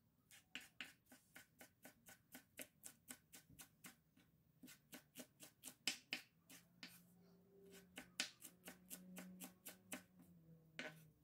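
Chef's knife chopping fresh coriander on a wooden cutting board: a quick, even run of knocks, about four a second, with a brief pause about four seconds in.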